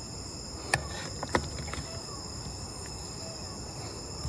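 Steady background hiss with two sharp clicks, the first under a second in and the second about half a second later.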